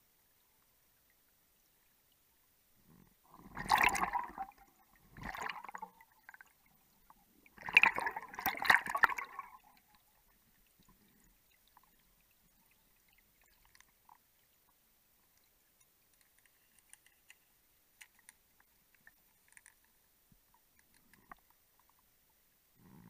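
Underwater gas bubbles from a closed-circuit rebreather diver gurgling in three bursts, the middle one shortest, followed by faint scattered ticks.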